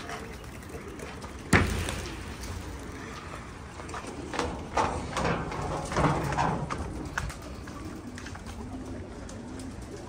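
Domestic pigeons cooing in low repeated notes. A single sharp clap about a second and a half in is the loudest sound, and there are short noisy strokes in the middle.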